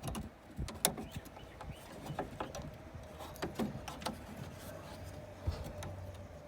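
Scattered light clicks and knocks of plastic and metal parts as the door lock cylinder is worked into a new exterior door handle inside a car door, over a faint steady hum.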